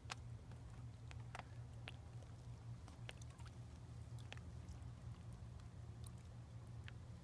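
Faint outdoor background: a steady low hum with a few soft, sharp clicks scattered through it.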